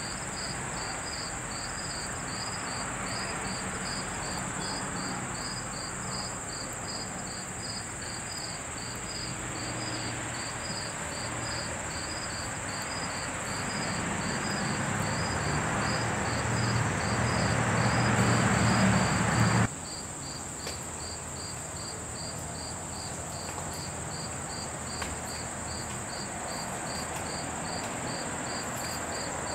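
Crickets chirping steadily at about two chirps a second over a continuous high insect trill. A rushing noise with a low hum swells for several seconds and cuts off abruptly about twenty seconds in.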